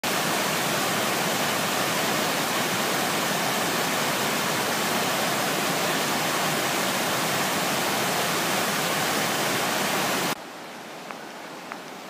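White water rushing down a rocky stepped cascade, a loud steady rush. About ten seconds in it drops suddenly to a much quieter, more distant river rush with a few faint ticks.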